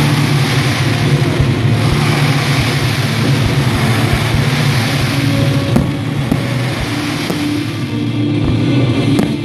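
Fireworks: ground fountains spraying sparks with a dense, steady hiss, scattered pops and crackles and a sharper pop about six seconds in, over music playing underneath.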